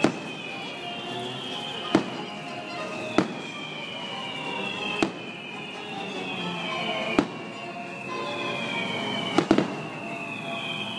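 Aerial firework shells bursting: sharp bangs roughly every two seconds, with two or three in quick succession near the end, over music playing throughout.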